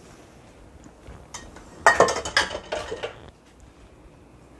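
Pots and utensils clattering: a couple of light clicks, then a burst of metal clinks and clatters about two seconds in that lasts about a second.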